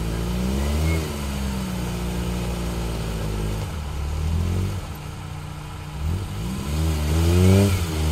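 Suzuki Jimny JA11's 660 cc three-cylinder turbo engine working on an off-road course, revs rising and falling, easing off in the middle, then revving up harder and louder near the end.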